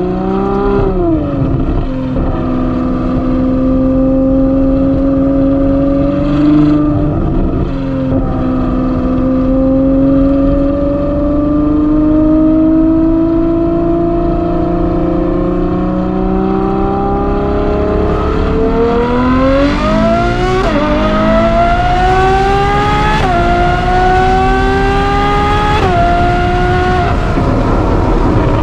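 Ferrari 812 GTS's 6.5-litre V12, fitted with a Novitec exhaust, heard from the open cockpit. It drones steadily at part throttle with a slowly rising pitch, then about two-thirds in it accelerates hard, the pitch climbing and dropping back at three quick upshifts.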